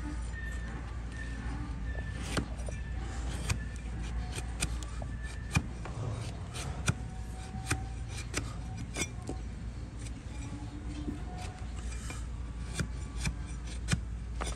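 Flat steel hoof blade shaving and chipping the overgrown horn of a donkey's hoof against a wooden block: an uneven series of sharp cracks and scrapes as shavings split away.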